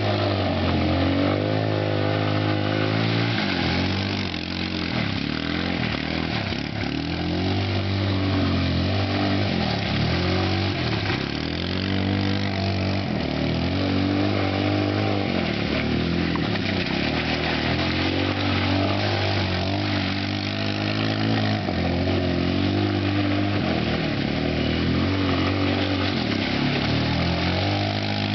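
Kymco MXU 150 quad's single-cylinder four-stroke engine under riding, revving up and dropping back over and over, its pitch falling and climbing again every two to three seconds.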